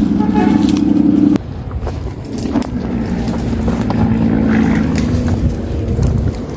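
A motor vehicle's engine running, with an abrupt change to a lower, more uneven rumble about a second and a half in.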